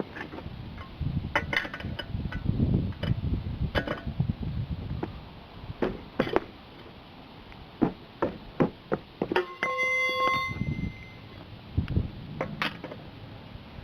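Irregular metal clinks and knocks of a wrench working a car wheel's lug nuts loose, with one ringing metallic ping about ten seconds in.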